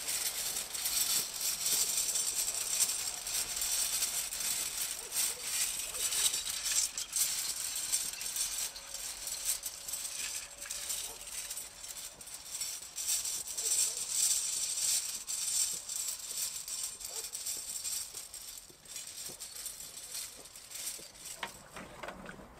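A hand-pulled harrow dragged over dry, cloddy tilled soil: a continuous uneven scraping and rattling of tines and clods, with many small clicks. It is harrowing in broadcast-sown einkorn seed.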